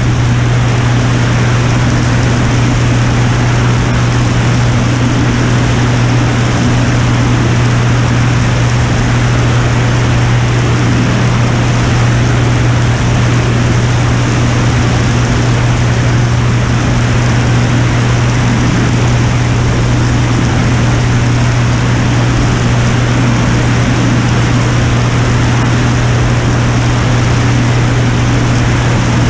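Piper Turbo Saratoga's turbocharged six-cylinder engine and propeller in steady flight, a constant low drone under heavy wind rush on a camera mounted outside the aircraft.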